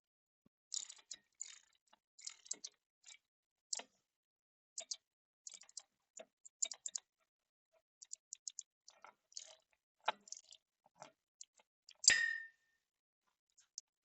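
Light, irregular metallic clicks and ticks of hand tools working on a bolt, then one louder metal clank about twelve seconds in that rings briefly.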